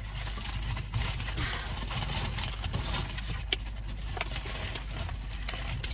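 Steady low engine hum inside a car's cabin while water is drunk from a plastic bottle, with a few short clicks.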